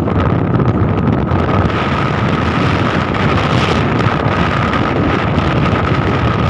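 Heavy wind buffeting the microphone of a moving motorcycle, with the bike's engine running steadily underneath and a thin steady whine throughout.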